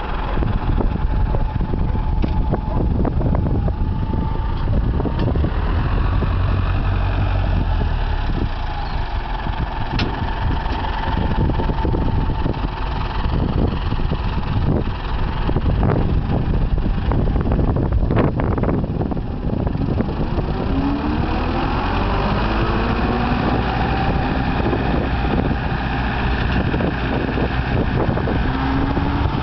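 Tractor engine running steadily, with scattered knocks in the first two-thirds. In the last third the engine note shifts up and down.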